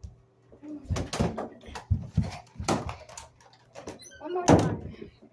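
A series of knocks and thumps from children moving about and bumping things, with a child's brief vocal sound near the end.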